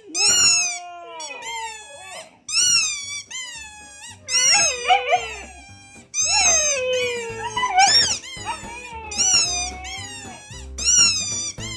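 Siberian huskies vocalizing: a string of about six drawn-out calls that slide up and down in pitch, over background music with a low beat.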